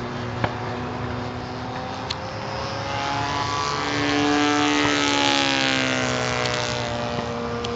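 Nitro glow engine of a radio-controlled Christen Eagle biplane running in flight. Its pitch rises and then falls, and it grows louder about four seconds in before easing off again.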